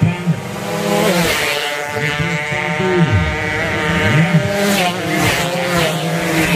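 Standard 120cc underbone racing motorcycles running flat out as several bikes approach and pass in turn. The engine pitch rises and falls several times.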